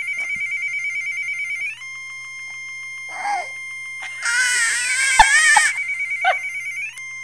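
A toddler cries out: a short cry, then a loud wavering wail of about a second and a half some four seconds in, then another short cry. Under it runs a steady electronic tone, trilling like a phone ringtone for the first two seconds, then holding on with a regular tick.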